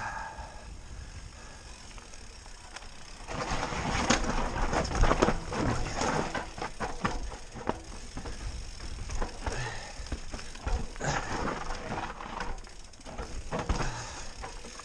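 Mountain bike riding downhill over rough forest ground: tyres running on dirt, and the bike rattling and clattering over bumps. It is quieter on the smooth track at first, then gets louder and busier about three seconds in as the bike drops onto the rough, steep trail.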